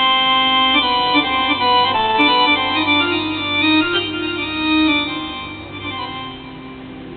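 Slow baladi dance music without drums: a held chord, then a free melody of long notes on an organ-like keyboard instrument, growing quieter in the last couple of seconds.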